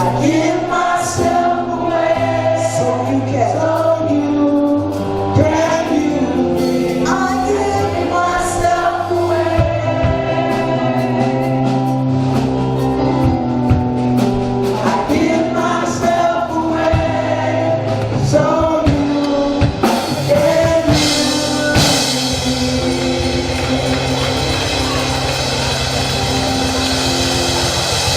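Gospel choir singing with instrumental accompaniment, voices holding long notes over sustained chords; about 21 seconds in a bright, steady high-pitched wash joins the music.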